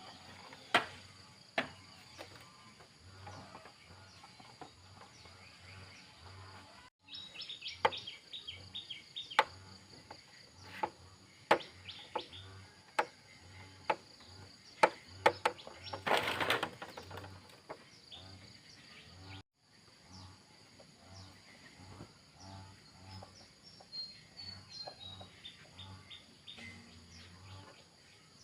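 Scattered sharp clicks and clinks of hand tools and metal parts being handled while a Honda Wave 100 motorcycle is taken apart, with a short noisy burst about halfway through. Birds chirp in the background near the end.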